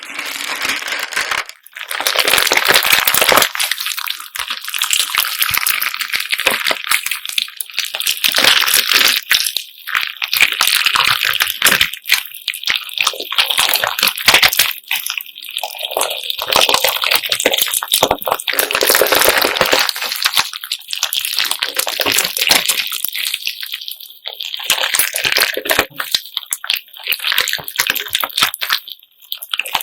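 Homemade slime mixed with assorted beads being squeezed and kneaded by hand: wet squelching, with the beads clicking and rattling against one another in dense, irregular surges.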